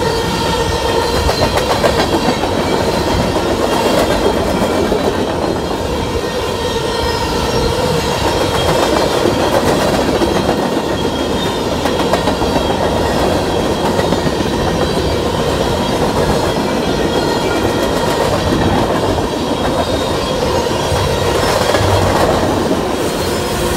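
Loaded freight train's covered hopper cars rolling past close by: a steady rumble and rattle of steel wheels on the rails, with clicking over rail joints and thin steady ringing tones above it.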